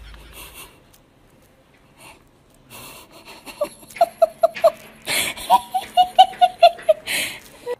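A person laughing hard: from about three and a half seconds in, two runs of quick, evenly spaced high "ha" notes, with wheezing gasps for breath between and after them.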